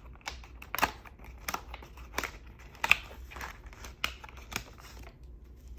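Planner pages being pushed onto a discbound planner's metal discs: a string of sharp clicks, with paper rustling between them.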